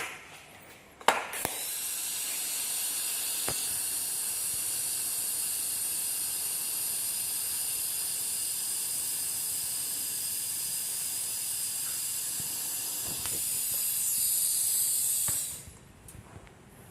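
Welding on a snapped clutch-pedal bolt, a steady high hiss held in one continuous run of about fourteen seconds. It starts with a sharp click, grows a little louder near the end, then cuts off suddenly.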